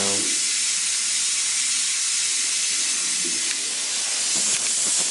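A steady, even hiss with no rhythm, with a few faint clicks in the second half.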